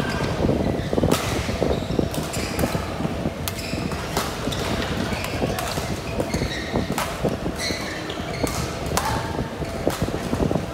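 Badminton rally: sharp, irregular racket strikes on the shuttlecock and players' footfalls on the court, with short high squeaks of shoes, echoing in a large hall over steady background noise.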